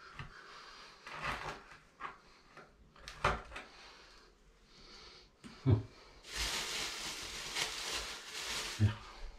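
Hand tool scraping and knocking now and then at a toilet floor flange, then a white plastic bag rustling for about three seconds near the end.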